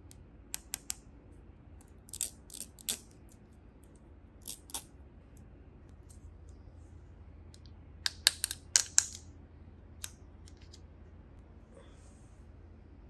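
Small plastic toy pieces clicking and tapping against each other as they are handled. The clicks come in short clusters, with the densest run about eight to nine seconds in.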